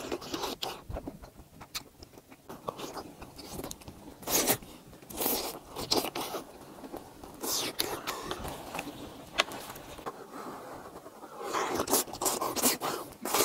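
Close-up eating sounds of a person slurping strings of melted mozzarella cheese and chewing, with wet mouth clicks and smacks throughout, a few louder slurps, and a longer one near the end.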